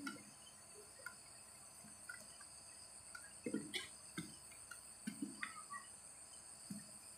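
Quiet background: a steady high-pitched hiss, with a few faint short sounds scattered through it from about three and a half seconds in.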